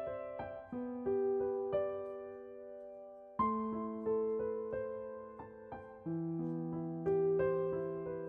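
Soft background piano music: slow chords that are struck and left to fade, a new chord every second or two.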